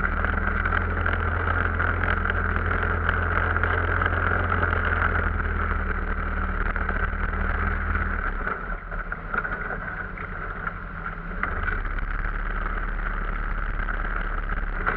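Arctic Cat off-road vehicle engine running steadily under way; its deeper hum falls away about eight seconds in, as if the throttle is let off.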